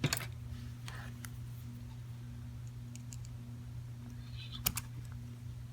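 A few small, sharp metal clicks as a screwdriver works at the hardened retaining ring in a padlock's core, over a steady low hum.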